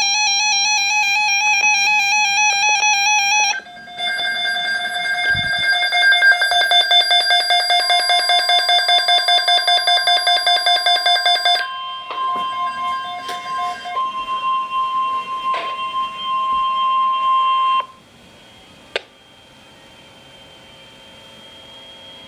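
Emergency Alert System attention tones: a steady buzzy electronic tone for the first few seconds, then after a short break a lower tone that pulses rapidly, joined about 8 s in by a steady higher tone. The pulsing stops about 12 s in and the steady tone carries on until it cuts off suddenly about 18 s in, leaving faint hiss and a single click.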